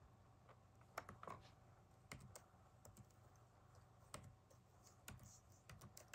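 Faint keystrokes on a laptop keyboard: a dozen or so separate key presses at uneven spacing as a short code is typed.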